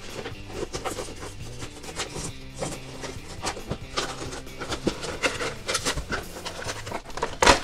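Crinkling and crackling of plastic packaging being handled as a clear plastic blister tray of toy figures is worked out of its cardboard box, with one loud crackle near the end.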